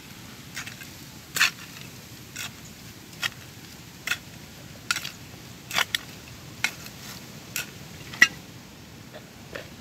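Small hand tool chopping and scraping into dry, stony soil in short, sharp strokes, about one a second and unevenly spaced; the loudest strike comes near the end.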